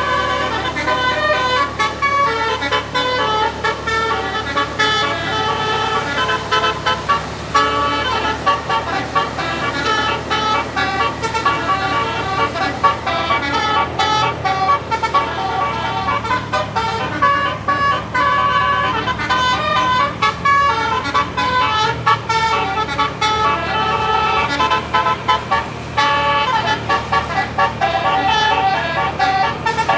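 Indonesian telolet bus horn of the Basuri type playing a tune nonstop: several horn tones sound together and change in quick succession.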